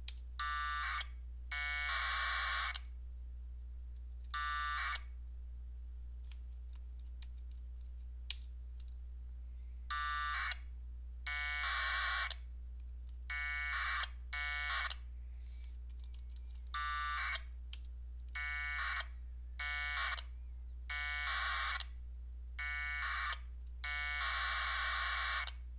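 Packet radio data bursts: about fourteen short, raspy tone bursts of 1200-baud AFSK as the Direwolf soundcard modem and radio exchange AX.25 frames to set up a connection with the LinBPQ32 node. They come in clusters of short and longer bursts, with a gap of about five seconds after the first few, over a steady low hum.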